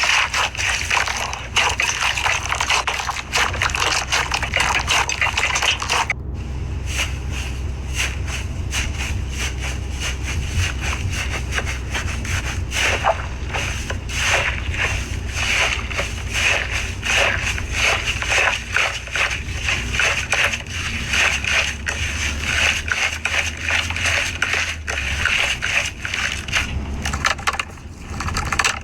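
Slime being squeezed and worked by hand, giving a dense run of small crackles and pops over a steady low hum. The sound changes abruptly about six seconds in, then carries on.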